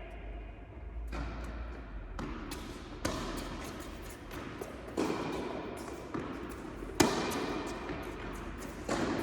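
Tennis rally on an indoor court: a string of sharp racket strikes and ball bounces, about one to two seconds apart, each followed by a short echo. The loudest comes about seven seconds in.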